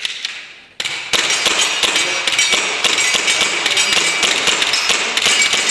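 Rapid string of gas blowback airsoft pistol shots with BBs striking metal targets: a dense run of sharp pops and clanks with some ringing, starting suddenly about a second in.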